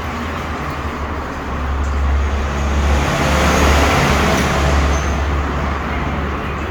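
Old engine oil draining into a catch pan: a steady rushing pour that grows louder in the middle and eases off near the end, over a low steady hum.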